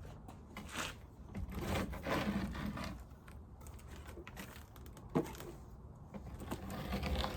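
Scraping on a wooden beehive bottom board as dead bees and debris are cleared off it, in rough rasping spells, with one sharp knock about five seconds in.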